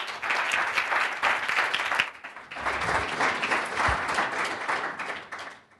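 Audience applauding, dipping briefly about two and a half seconds in, then fading out near the end.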